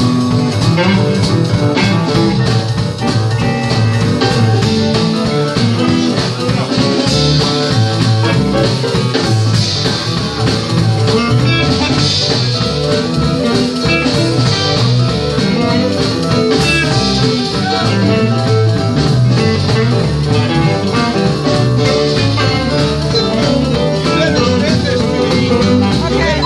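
Live blues band playing, with keyboard and electric bass guitar.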